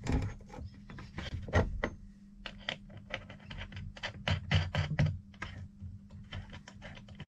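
Many small irregular clicks and taps of fingers threading a nut onto a 5/16-inch bolt through a wooden cabinet door, hand-tightening it, with a steady low hum underneath.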